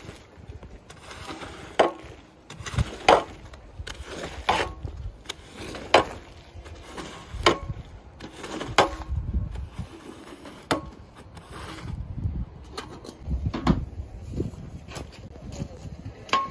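A rubber squeegee dragged in repeated strokes across a soaked, soapy shag rug, pushing foamy water out of the pile, with a sharp knock or slap at each stroke about every one and a half seconds.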